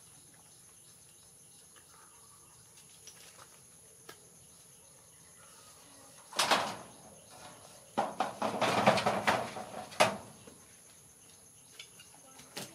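Broken brick and stone fragments scraping and clattering as a dog paws and noses through rubble: one short scrape about six seconds in, then a longer run of crackly clatter for about two seconds, ending in a sharp knock.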